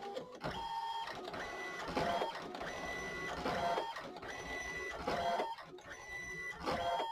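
ALPS MD-5500 thermal-transfer printer printing, its print head making repeated passes: a steady whine that recurs about every one and a half seconds, with a short mechanical rattle between passes.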